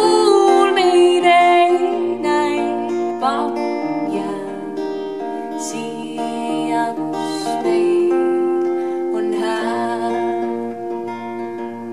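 Music: steel-string acoustic guitar strummed and picked, with a woman's voice singing long held notes over it, mostly in the first few seconds and again near the end.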